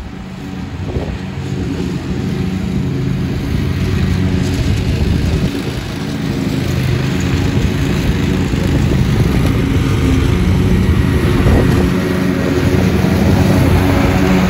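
Lawn mower engine running steadily.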